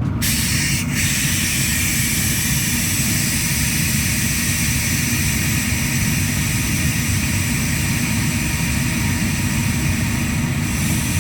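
Water rushing into a newly installed tank water heater as it fills: a steady hiss over a low rumble.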